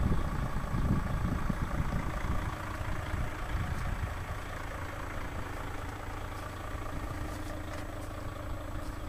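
A vehicle engine idling steadily, with a heavier low rumble in the first couple of seconds.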